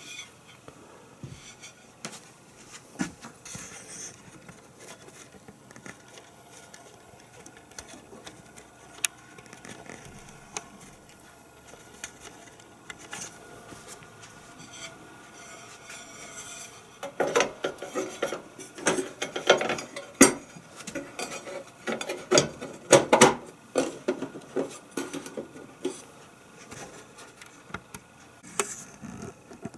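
Scattered light clicks, then about halfway in several seconds of clattering and scraping as a contact grill's ribbed grill plate is fitted back onto the base over the heating element and metal drip tray.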